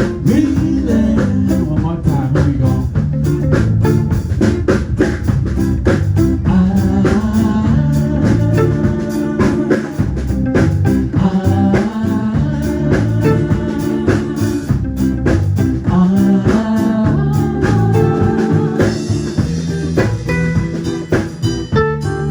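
A band playing bluesy music with guitar and drums, and a voice singing over it.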